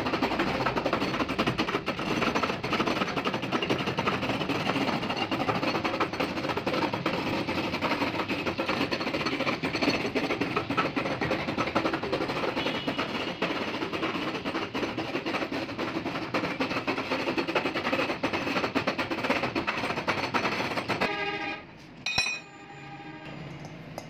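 Belt-driven compressor-cutting machine running while its cutter works around the steel shell of a sealed fridge compressor, a loud, even grinding noise. Near the end it stops suddenly, followed by a short metallic ring and clank.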